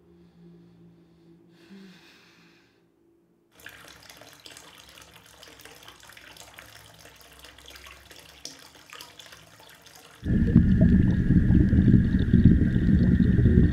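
Faint trickling and dripping water in a bathtub, full of small clicks. About ten seconds in, a loud low rumbling drone cuts in suddenly, with a steady high tone over it.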